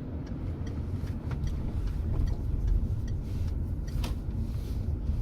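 Inside a car's cabin: low, steady engine and road rumble, with scattered light clicks over it.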